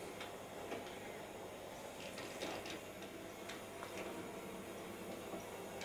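Hattons OO gauge P class model locomotive running slowly: a faint steady motor hum with irregular light clicks of its wheels over the rail joints and points.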